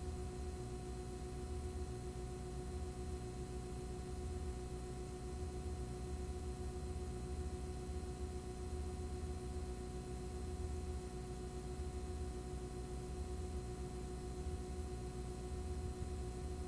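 Steady electrical hum and hiss from a blank stretch of recording: a low drone with a few constant high tones over an even hiss, unchanging throughout.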